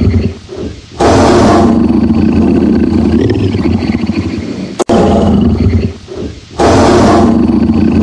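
A tiger roaring. A long, deep roar starts abruptly about a second in and runs for nearly five seconds, and after a short lull a second roar begins near the end.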